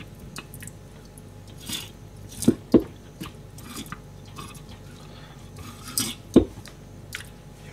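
Kitchen knife cutting a raw herring on a plastic cutting board: soft slicing and scraping, with the blade knocking the board in two quick pairs, about two and a half seconds in and again about six seconds in.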